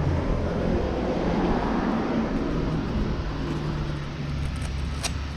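Motorbike engine idling steadily while stopped. A single sharp click comes near the end.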